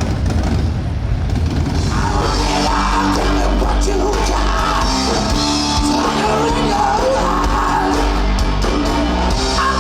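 Rock music with a singer, coming in about two seconds in over a low rumble.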